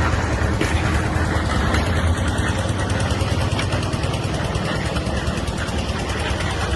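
An engine running steadily at a constant speed, with a low rumble and fast even pulsing.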